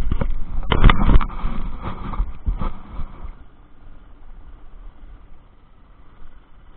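Handling noise on an inflatable boat while a caught pike is held on a lip gripper: a quick run of knocks and clatters with rustling, dying away about three seconds in to a faint hush.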